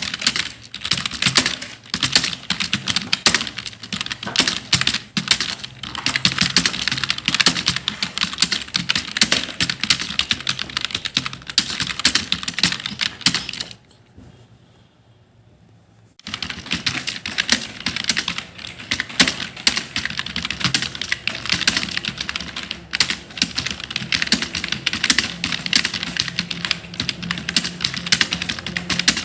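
Fast, continuous typing on a computer keyboard, a dense stream of key clicks, with a pause of about two seconds halfway through before the typing picks up again.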